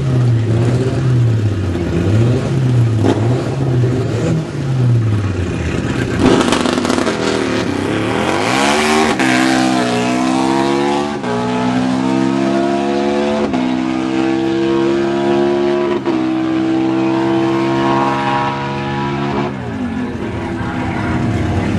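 Harley-Davidson Destroyer drag bike's V-twin revved up and down repeatedly at the start line. About six seconds in it launches hard and accelerates, the pitch rising through each gear and dropping at each upshift (three shifts, roughly every two to three seconds), until it comes off near the end.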